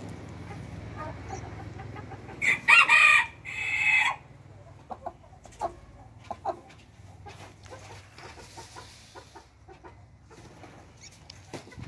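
A rooster crowing once, about two and a half seconds in, in two loud parts. Afterwards, scattered soft clucks and small clicks from the flock.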